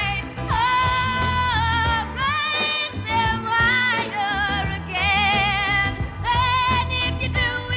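Woman singing in full voice, holding long notes with a wide vibrato, over a band with bass and drums.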